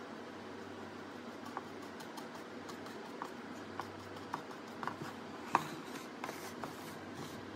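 Small irregular ticks and taps of a paintbrush dabbing paint onto a plastic mask, with brief rustling and scraping near the end as the mask is moved on the table, over a steady low hum and hiss.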